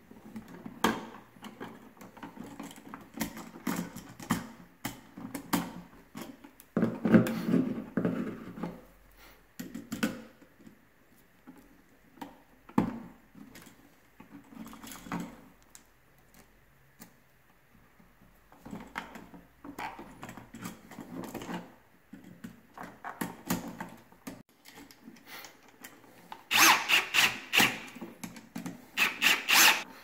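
Needle-nose pliers and copper wires being worked on a light switch: scattered clicks, scrapes and rustles of metal on metal. Near the end a power drill runs twice briefly, driving the switch's terminal screws tight.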